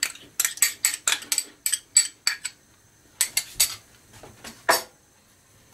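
A spoon clinking against a small glass bowl as ghee is scraped out into a frying pan: a quick run of light clinks, a few more about three seconds in, and a last one near the end.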